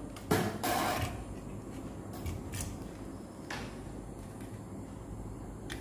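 Light handling noise of multimeter test probes and their leads being moved over a circuit board on a workbench. A sharp click and a brief rustle come near the start, then a few faint ticks over a low steady hum.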